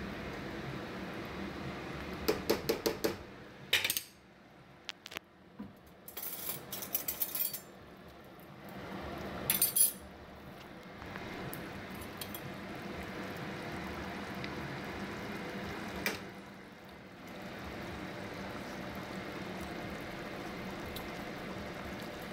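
Spoon clinking, knocking and scraping against a stainless steel pot while stirring a thick stew. There are bursts of quick clinks about two seconds in and again around six to seven seconds, a louder pair near ten seconds and a single knock later, over a steady low background hiss.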